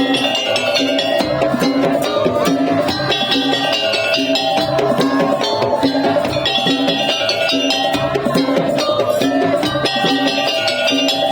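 Madurese tong-tong (daul) percussion ensemble playing: wooden slit drums, drums and bells in a dense, steady rhythm under a melodic phrase that repeats every few seconds.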